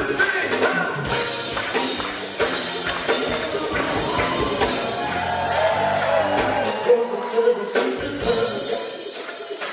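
Live four-man vocal group singing a Motown song in harmony, backed by a band with keyboards.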